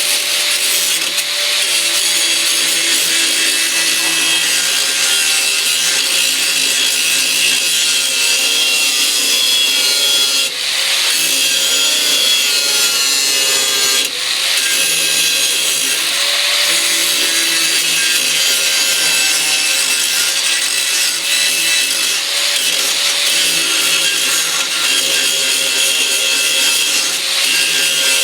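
Electric angle grinder running steadily and grinding down a weld on a car's metal, its motor whine spinning up just before and holding steady, with harsh grinding noise that eases off briefly twice as the disc is lifted.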